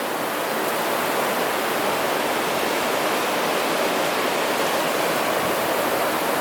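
Rushing water of a mountain stream, a steady, even rush with no change.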